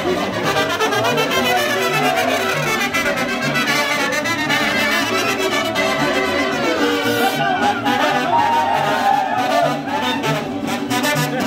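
Brass band music playing, with trumpets and trombones over a steady, repeating low bass line.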